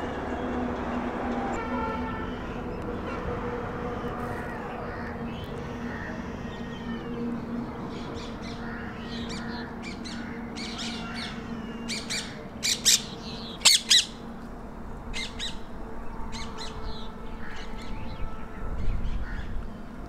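Wild birds calling: a scatter of short, sharp chirps and squawks through the middle, the loudest few just past halfway, over a steady low hum.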